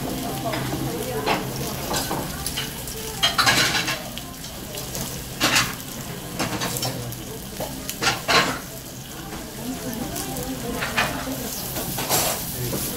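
Food sizzling on a hot domed iron Genghis Khan grill, with metal tongs clinking against the grill every few seconds as lamb is laid on.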